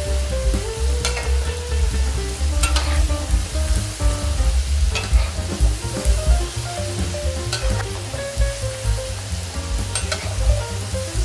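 Potato cubes deep-frying in hot oil in a wok, with a steady sizzle as a metal spatula stirs them. Occasional sharp clicks stand out, about one every two seconds.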